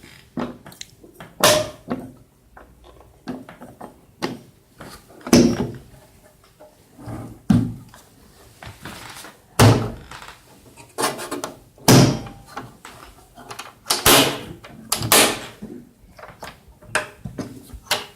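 Irregular clunks and knocks of the metal cabinet of a converted RV 109 military radio being handled, its clips and panels worked, with a sharp thump every second or two.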